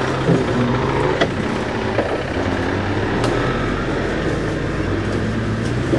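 Land Rover Defender 90 engine running steadily as it drives past and away over a muddy, rutted off-road track, with three sharp knocks over the first few seconds.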